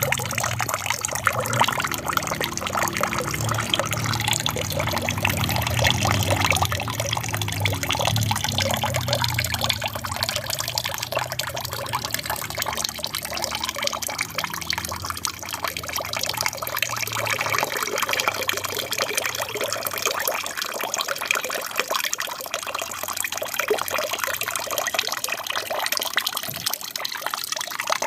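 Water trickling and splashing steadily in a small aquarium waterfall, with a low hum underneath that fades out about two-thirds of the way through.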